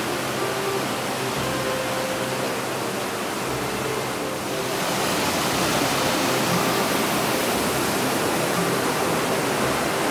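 Waterfall water rushing steadily, growing louder and brighter about four and a half seconds in.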